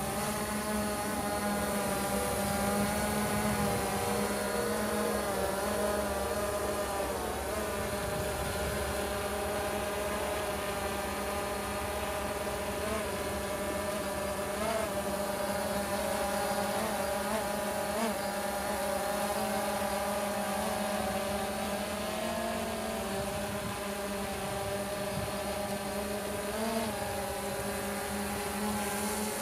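DJI Phantom 2 quadcopter flying close by, its four motors and propellers giving a steady buzzing hum whose pitch wavers slightly as it manoeuvres.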